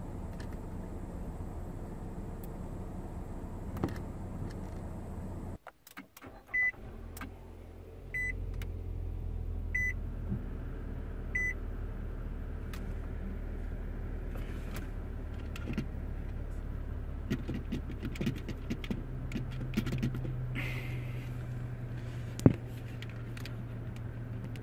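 Rexing dash cam giving four short high beeps about a second and a half apart over a low car-cabin hum. Then come small clicks of its buttons being pressed to set the date, which it needs each time because its internal battery has died, and one sharp click near the end.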